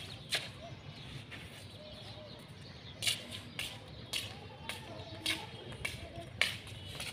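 Slide sandals slapping on a tiled floor as a man walks: a steady run of footsteps, about two a second, starting about three seconds in.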